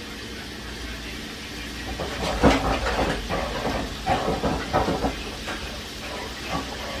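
Chicken chunks frying in hot oil and butter, a steady sizzle, with a run of sharp clatters between about two and five seconds in as pieces are handled in the pan.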